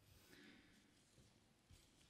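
Near silence: faint room tone, with one soft tick near the end.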